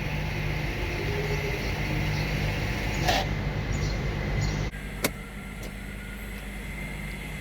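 Mercedes ML electric parking brake actuator motor running with a steady hum as it releases the rear brakes into the pad-replacement fitting position. It stops abruptly about two-thirds of the way in, followed by a single sharp click.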